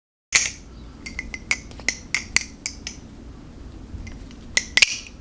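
LDY Sirius V3 balisong being flipped: sharp metal clacks and clicks as the handles swing around and strike each other and the blade, a quick run of about nine, then a tight cluster of clacks near the end.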